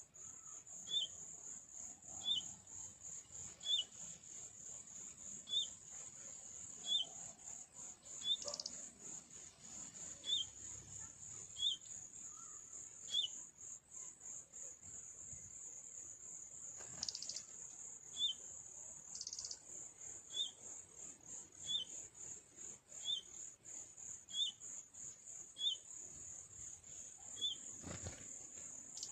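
Crickets or other insects trilling steadily and high, with a bird's short falling chirp repeating about every second and a half, pausing for a few seconds midway. A few short noises are scattered through.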